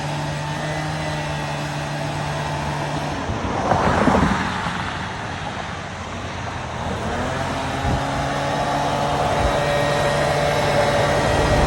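An engine running steadily, with a brief loud rushing noise about four seconds in and its tone shifting higher from about seven seconds.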